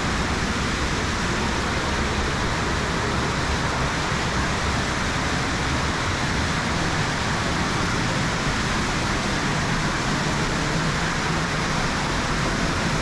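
Steady rushing of a waterfall running high with floodwater, a continuous even roar with no breaks.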